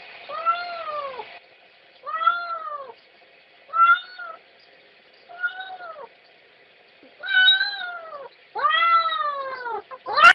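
Domestic cat meowing over and over while a dog mounts it: six drawn-out calls about a second and a half apart, each rising then falling in pitch.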